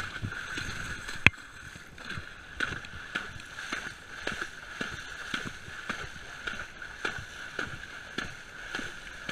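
A pony pawing and splashing in shallow muddy water, with rhythmic splashes about twice a second. There is one sharp click about a second in.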